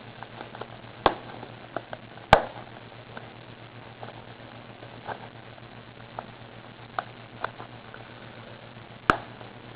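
Hands working at a cardboard trading-card box to get it open: scattered small clicks, taps and scrapes of the packaging, with sharp snaps about 1, 2.3 and 9 seconds in.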